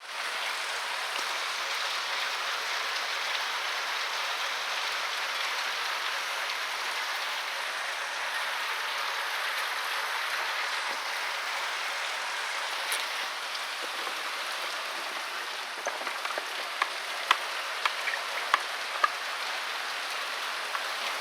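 Heavy rain falling steadily as a dense, even hiss. Near the end a few louder, sharp ticks of drops strike something close by.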